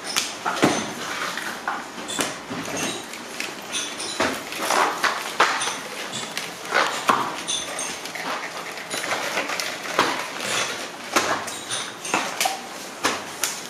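Cardboard strips and bundles of paper firework tubes being handled and stacked: irregular taps, knocks and scraping of cardboard on cardboard.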